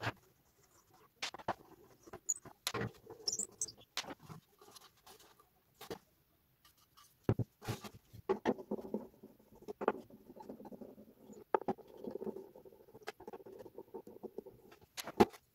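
Hand-tool and handling noises from taking apart a wooden subwoofer cabinet: scattered clicks and knocks as the woofer is lifted out and screws are worked with a screwdriver, with a stretch of scratchy scraping in the second half.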